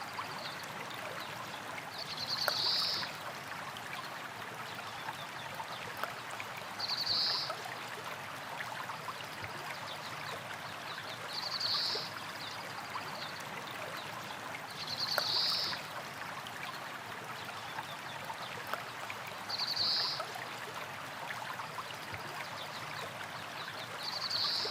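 A small river flowing and splashing over rocks in a steady rush. A short, high-pitched buzzy call rises above it about every four and a half seconds, six times in all.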